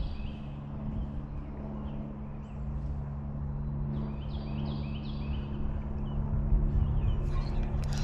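Outdoor ambience with wind rumbling on the microphone and a steady low hum. A songbird sings a short run of quick notes twice: once right at the start and again about four seconds in. A brief rustle comes near the end.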